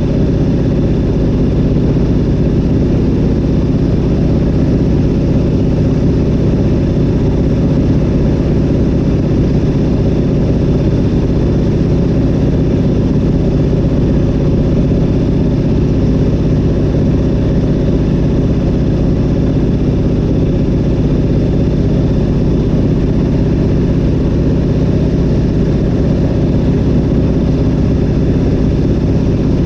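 Zlin Z-37A-2's nine-cylinder M-462RF radial engine and propeller running steadily in level flight, heard from inside the cockpit.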